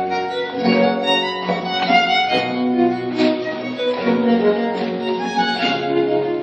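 Period-style dance music led by a violin, with other bowed strings and a plucked-string accompaniment, playing a lively tune in short, changing notes.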